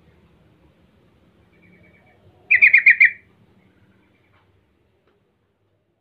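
Yellow-vented bulbul calling: one loud, quick chattering phrase of about five notes, each sliding slightly downward, about two and a half seconds in. Softer short runs of notes come just before and after it.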